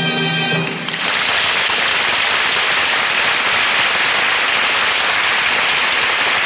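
A held orchestral chord ends under a second in, giving way to steady studio-audience applause. It is heard on an old, narrow-bandwidth radio transcription recording.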